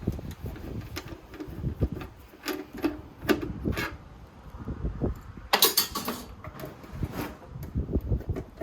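Irregular clicks, knocks and rattles of a Buffalo TeraStation network storage unit's casing and parts being handled and pried apart, with a louder clatter about halfway through.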